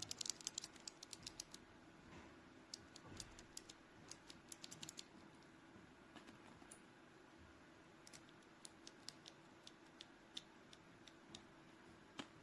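Typing on a KOORUI mechanical keyboard with red switches. A quick run of keystrokes comes first, then scattered short bursts and single key presses, all fairly quiet.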